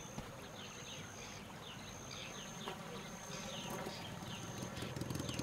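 Outdoor nature ambience: short, high, falling chirps about twice a second over a thin, steady, high whine that breaks off now and then, with a low rumble beneath that grows louder near the end.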